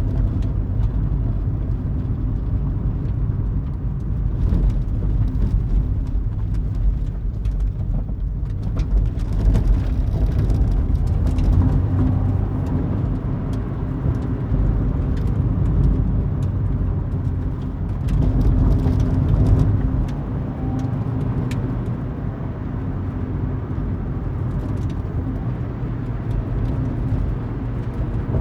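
Motor racing vehicle engines running in a continuous low drone, with pitch and loudness wavering slightly but no single pass or sharp rev.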